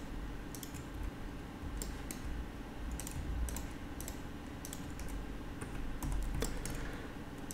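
Computer keyboard keys clicking faintly and irregularly, about two to three presses a second, as modelling shortcuts are entered.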